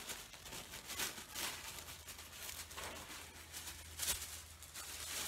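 Tissue paper rustling in several brief crinkles as a sheet is handled, the loudest about four seconds in.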